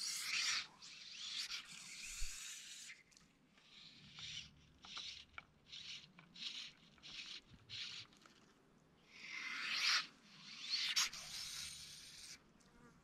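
Rubbing and scraping close to the microphone from handling the gear and camera while fishing. There are longer scrapes near the start and again about three-quarters through, with a run of short strokes about twice a second in between.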